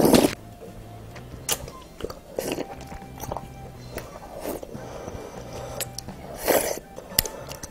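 A child slurping rice cake soup broth from a wooden spoon and chewing. The loudest slurp comes right at the start and another about six and a half seconds in, with small mouth and spoon clicks between them.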